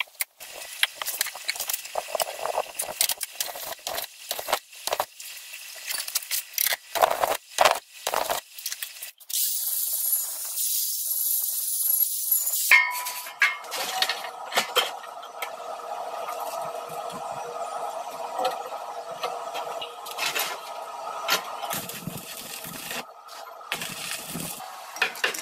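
Sheet-metal pieces clinking and scraping as they are handled, then an angle grinder grinding a steel gas cylinder for a few seconds. From about halfway through, arc welding crackles steadily until the end.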